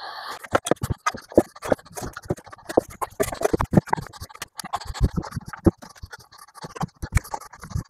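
Hard plastic battery case of a Greenworks 82V pack being handled and reassembled: irregular clicks, knocks and rattles as the top cover is fitted back on and its screws are turned in with a small screwdriver.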